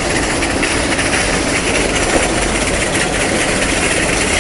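Steady rushing noise with no distinct events, at about the same loudness throughout.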